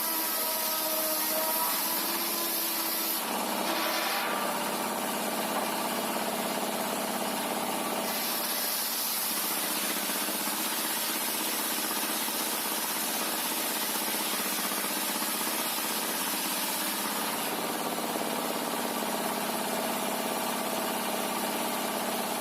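Sawmill machinery running steadily, with several shifting tones in the first few seconds and a brief surge of noise about three to four seconds in.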